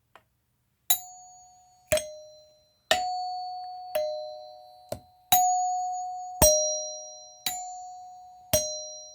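Two doorbell chimes, run by a DSC Power832 alarm panel, ringing over and over with no pause: sharp struck notes about once a second, alternating between a higher and a lower tone, each ringing on and fading before the next.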